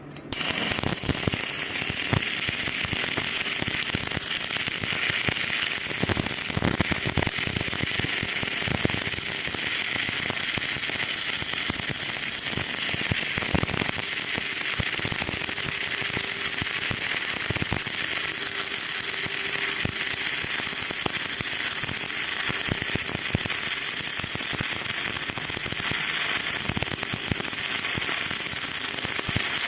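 Stick (arc) welding: the electrode's arc strikes a moment in and then burns with a steady, dense crackle.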